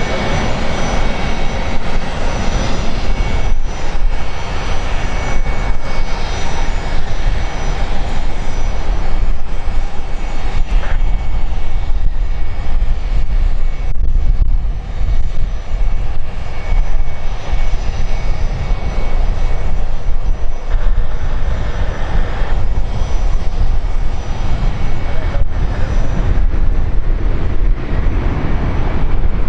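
Airliner engines running loud and steady, with a thin high whine over roughly the first half that fades away.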